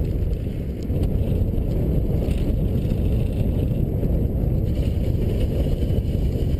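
Wind buffeting the microphone of a GoPro camera mounted on a moving bicycle: a steady, loud low rumble.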